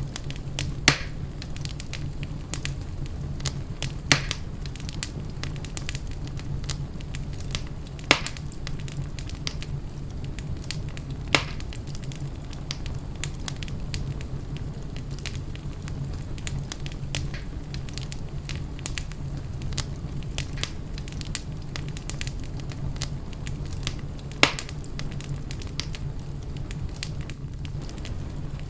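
Wood fire burning in a fireplace: a steady low rumble with constant fine crackling and a handful of sharp, louder pops.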